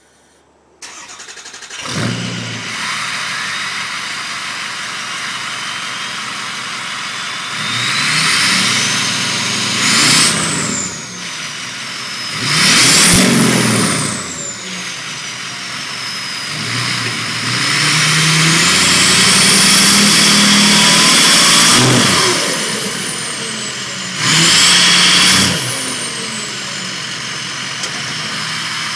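Ford F-250 Power Stroke diesel with a straight-piped exhaust and S&B cold air intake starting up about a second in, then idling and being revved several times, once held for a few seconds. Each rev brings a loud, high turbo whistle that climbs as the engine builds and glides back down as it drops to idle.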